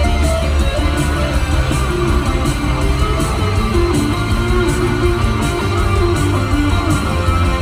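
Live rock band playing a guitar-led passage, with electric guitars and bass over a steady drum beat, heard from the audience in a large arena.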